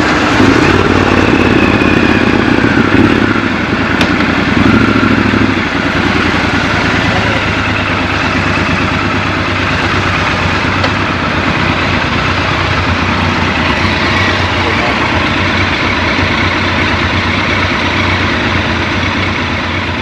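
Triumph Scrambler 1200 XC's parallel-twin engine running loudly for about the first six seconds, then running steadily and more quietly.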